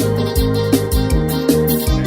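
Brega band music, an instrumental passage between sung lines, with a steady driving beat under sustained keyboard-like chords.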